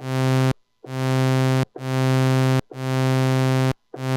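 Roland Gaia SH-01 synthesizer playing the same low, buzzy note four times and starting a fifth near the end. Each note swells in over a fraction of a second, because the amp envelope's attack is set to about halfway, then holds steady and cuts off sharply when the key is released.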